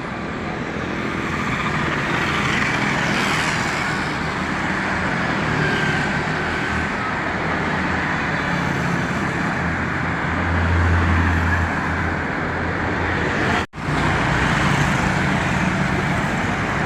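Steady city road traffic, with a heavy vehicle's engine rumbling past about ten to twelve seconds in. The sound cuts out for an instant just before fourteen seconds.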